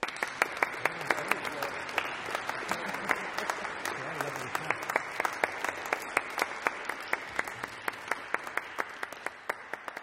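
Audience applauding, breaking out suddenly at the end of the orchestral piece, with a few loud single claps standing out from the rest, and thinning out near the end.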